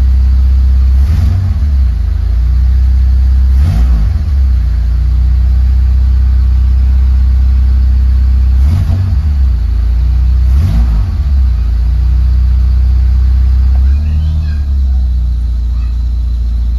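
Honda Accord Maestro car engine running steadily at idle, its speed swelling briefly about five times as the throttle is blipped. The engine is being tested for how well it holds its idle.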